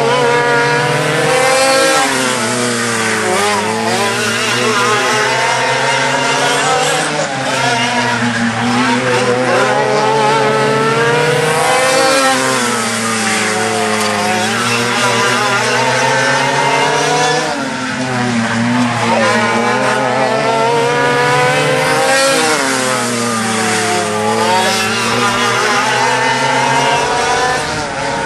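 Two racing go-kart engines, a dual-reed two-stroke and a Wankel rotary, running hard together as the karts lap a dirt oval. Their pitch climbs and falls back about every five seconds, once for each lap.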